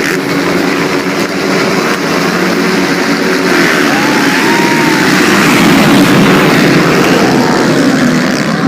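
Motocross motorcycle engines running and revving, with a strong hiss over them; the level swells a little midway.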